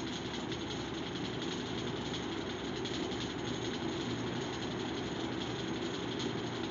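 A steady background hum, even and unbroken throughout, with no speech.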